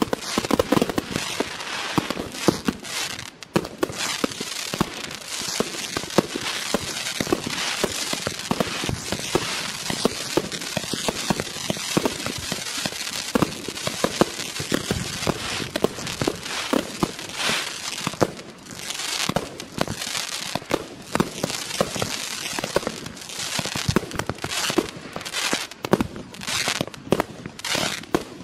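A Klasek 'Best price' 200-shot, 30 mm firework cake (C2003BP/C) firing. For the first two-thirds there is a rapid, unbroken stream of shots and bursts. About two-thirds of the way through it thins into separate clusters of bursts with short gaps between them.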